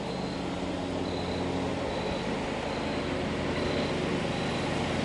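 Lawn mower engine running steadily, a low even drone, with a faint high beep repeating about once a second.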